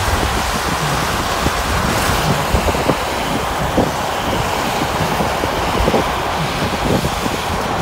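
Steady road and wind noise of a car travelling at speed on a motorway, heard from inside the car: a loud, even rush of tyres and air with a low rumble underneath.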